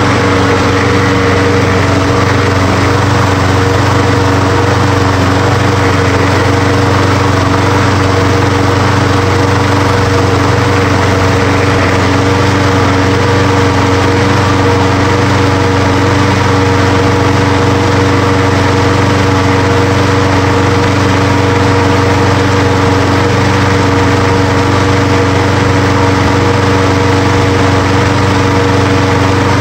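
Briggs & Stratton 6.75 hp single-cylinder four-stroke lawn mower engine running steadily at an even speed on its newly replaced ignition coil.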